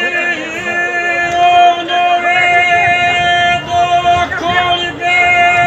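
Men's folk group singing unaccompanied in the old rural (izvorno) style: several voices holding long notes together, broken by a few short pauses for breath.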